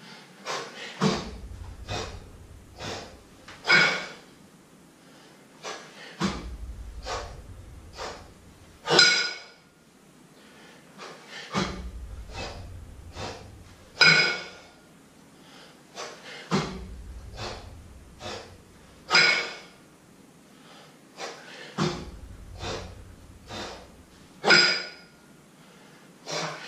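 A man's hard, rhythmic breathing while jerking a kettlebell overhead rep after rep. Quick short breaths are broken by five loud, forceful exhales about five seconds apart, one for each jerk.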